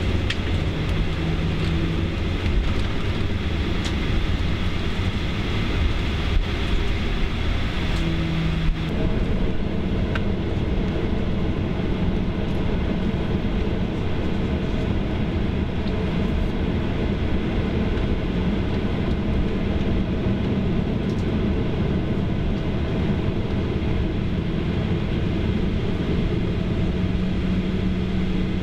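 Cabin noise of a Boeing 737-800 taxiing: the steady low rumble of its CFM56-7B jet engines at low thrust mixed with the wheels rolling over the taxiway, with a faint hum and a brief knock about nine seconds in.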